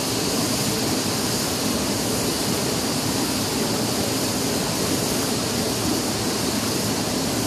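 Steady rushing of river water flowing over rocks and small cascades, an even hiss with no breaks.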